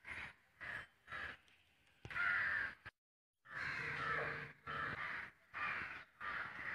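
A crow calling: a series of harsh caws of varying length, repeated throughout, with a short complete break about three seconds in.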